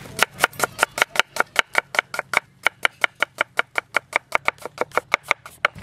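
Kitchen knife slicing red onion against a wooden cutting board: a quick, even run of sharp chopping taps, about four or five a second.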